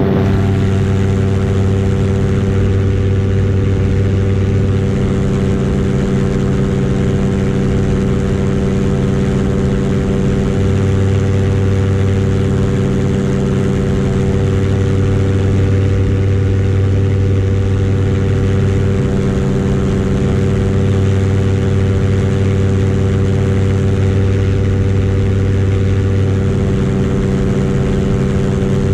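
Paramotor engine and propeller running steadily in flight, a continuous even drone.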